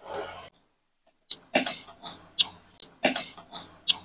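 A person coughing and clearing the throat: one burst at the start, then after about a second's pause a run of short, breathy coughs, about eight of them.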